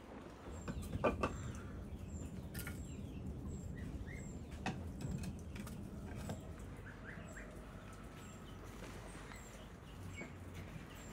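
Small birds chirping, one thin high note repeated about twice a second, over a low outdoor hum. A few sharp knocks, the loudest about a second in, from firewood being handled at a clay oven's firebox.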